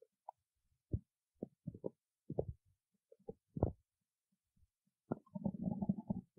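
Stomach growling: scattered short gurgles and low pops, then a longer bubbling growl about five seconds in.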